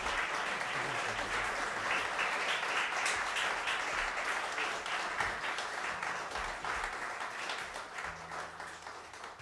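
Audience applauding at the end of a live set, a dense steady patter of many hands that fades away near the end.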